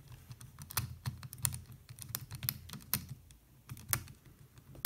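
Precision screwdriver driving small screws into a DJI Mavic Pro's gimbal mount, giving irregular light clicks and ticks as the handle is turned and the bit works in the screw heads.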